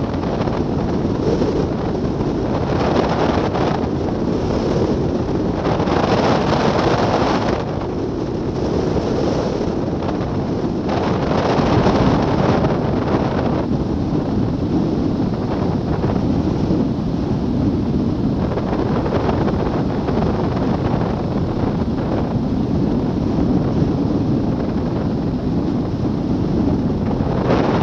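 Wind rushing over the microphone of a camera mounted on a hang glider in flight: loud, steady wind noise that swells and eases every few seconds.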